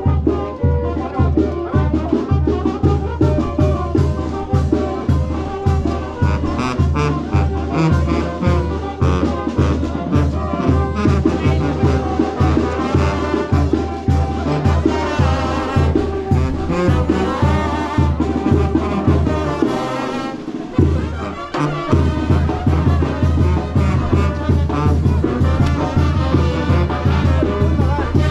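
Brass band music with trumpets and trombones over a steady bass beat; the low beat drops out for a moment about two-thirds of the way through, then comes back.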